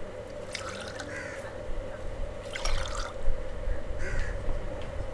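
Crows cawing a few times, short harsh calls, while glass tea tumblers clink as they are set out on a plastic tray. A steady hum runs underneath.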